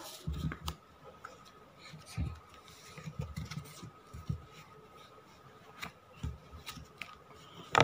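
A sheet of paper being folded and creased by hand on a tabletop: soft rustles and light taps, with a sharper click near the end. A faint steady whine sits underneath.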